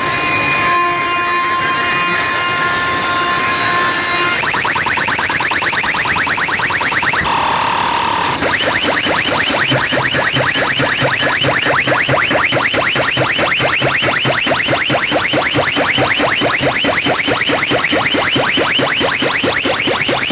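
Electronic sound-check tones from a DJ sound system: steady held tones at first, then, about four seconds in, a fast run of repeated rising chirps that carries on, broken briefly by a short hiss around eight seconds in.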